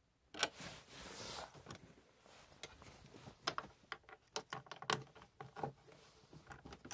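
Irregular light clicks and rattles of a socket ratchet being handled and set on the windshield bolts of a Ski-Doo snowmobile, with a short rustle of the plastic console and windshield about a second in.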